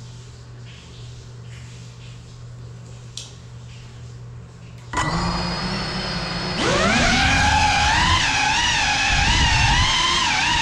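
A faint low hum, then about five seconds in an FPV drone's electric motors start with a sudden steady whine; about a second and a half later they throttle up to take off, and the whine gets much louder, its pitch wobbling up and down as the drone flies.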